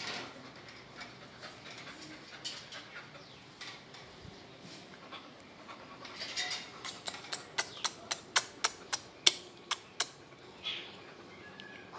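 Metal gate rattling and clicking as an English cocker spaniel stands up against it and paws at the rail: about a dozen sharp clicks in quick succession, three or four a second, starting about halfway through.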